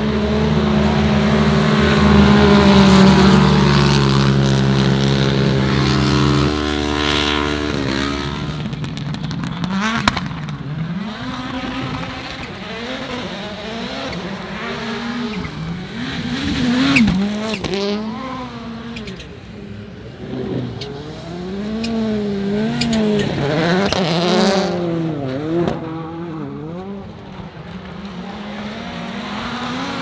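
Rallycross race cars and a side-by-side buggy racing on a dirt track. An engine held at a steady high pitch for the first several seconds, then engines rising and falling in pitch again and again as the cars brake, slide and accelerate through corners, with a few sharp cracks.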